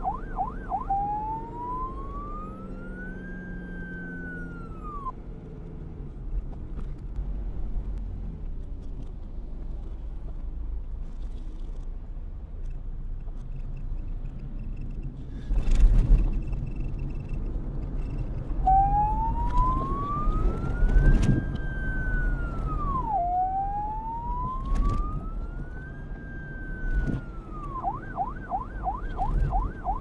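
Electronic police siren played backwards: slow rising wails that each end in a quick downward drop, with a fast warble at the start and again near the end. In the middle the siren stops for about thirteen seconds, leaving a low rumble and a few sharp thumps, the loudest about sixteen seconds in.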